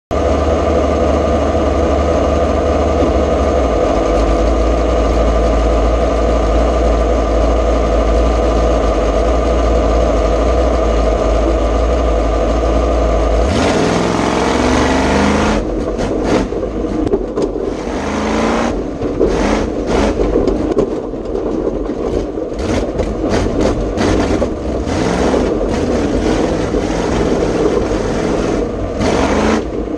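Ford 351 Cleveland V8 in a rough-truck Bronco running steadily at the line, then launching a little before halfway: the revs climb and fall over and over while the chassis bangs and rattles over the rough dirt course.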